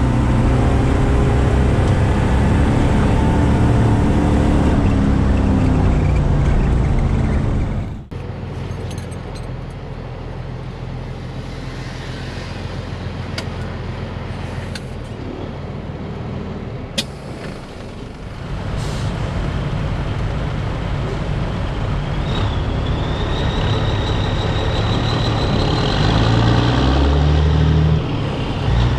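Caterpillar diesel engine of a Peterbilt 362 cabover truck running on the road. The engine note drops off sharply about eight seconds in, stays quieter for about ten seconds, then builds back up, with a high whine in the last few seconds.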